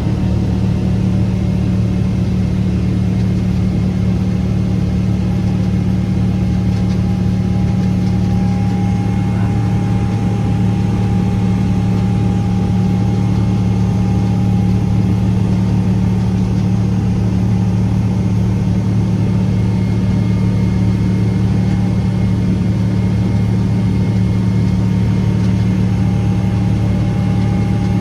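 Steady in-flight cabin drone of a Boeing 777-300ER airliner, a loud unbroken low hum with a faint higher tone over it.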